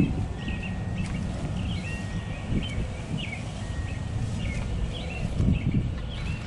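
Small birds chirping again and again, short quick calls, over a steady low outdoor rumble.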